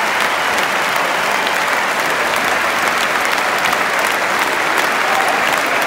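Large stadium crowd applauding: a dense, steady clatter of thousands of hands, with single sharp claps close by standing out.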